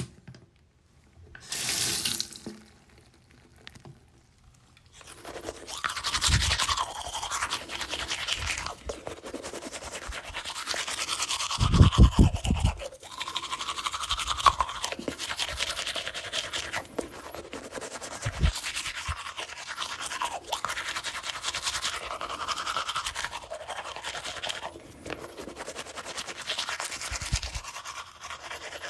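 Toothbrush scrubbing teeth in quick back-and-forth strokes. A short noise comes about two seconds in, then a quiet pause before continuous brushing starts about five seconds in. It is loudest around the middle, with a few low bumps.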